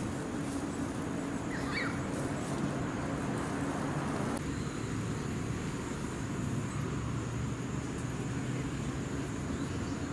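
Steady street noise: traffic hum and general outdoor din, with a brief high chirp about two seconds in.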